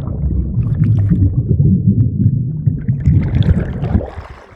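Muffled underwater churning and bubbling from a phone microphone taken under the water of a swimming pool in a jump. It is loud and low, with no clear sounds. About four seconds in it quietens and clearer sounds return as the phone comes back up.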